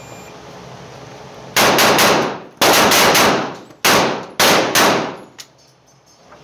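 A faint shot-timer beep, then about a second and a half later an HK45 Compact .45 pistol fires a rapid string of shots in several quick bursts, the shots about a fifth of a second apart, each ringing out on the range.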